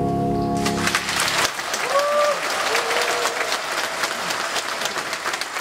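The song's last held chord stops under a second in, and a church audience breaks into applause that slowly fades. A short high call rises above the clapping about two seconds in.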